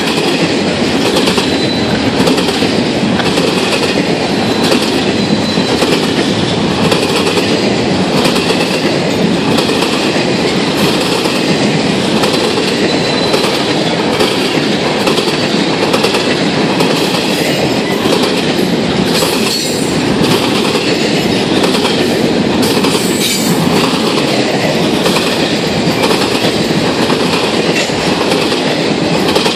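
CSX freight train running past close, its wheels rattling over the rails and a railroad diamond crossing in a steady, evenly spaced clatter under a continuous rolling rumble.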